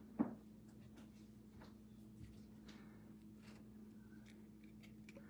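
Quiet room with a steady low electrical hum, a short sharp sound just after the start, and faint scattered clicks and rustles of a chrome trading card being turned over in the hands.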